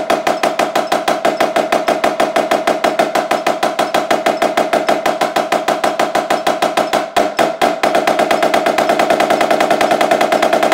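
Yamaha marching snare drum played with sticks in a fast, continuous stream of strokes with a bright ring, with a brief break about seven seconds in.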